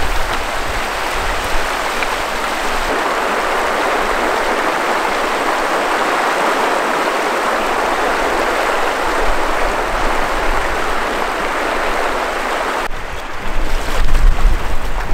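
Shallow river rushing over rocks in a riffle, a steady, even rush of water. About 13 seconds in it gives way to loud, irregular low buffets of wind on the microphone.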